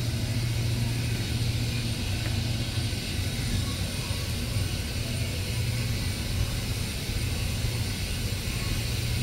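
Steady low hum with a faint hiss above it, unchanging throughout.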